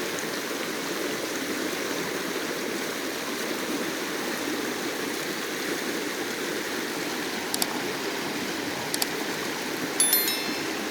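River water flowing steadily, an even rush of running water. A few sharp clicks come in the last few seconds, the last one with a brief high ring.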